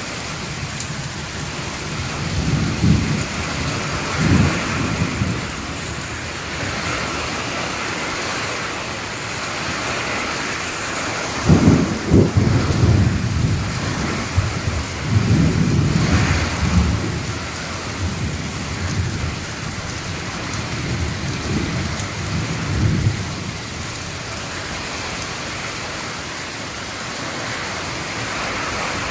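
Heavy rain falling steadily in a thunderstorm, with rolling thunder: low rumbles a few seconds in, a louder clap starting suddenly about eleven seconds in and rolling on for several seconds, and weaker rumbles around twenty seconds in.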